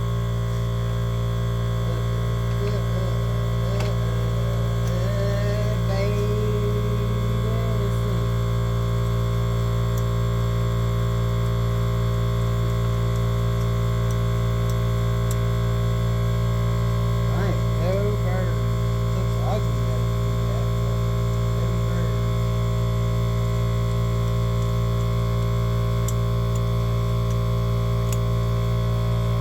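Shop air compressor running, a loud steady electric motor hum that holds the same level throughout.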